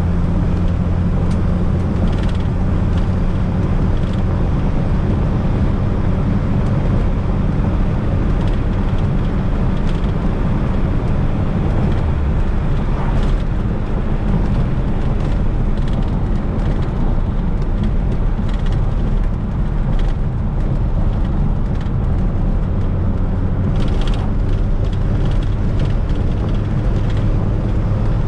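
Fiat Coupe 16V Turbo's turbocharged engine running under way, with road noise and scattered short clicks and rattles. The engine note shifts about twelve seconds in and settles back near the end.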